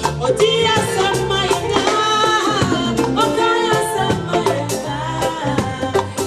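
Live band music with singing over a steady percussion beat and bass line.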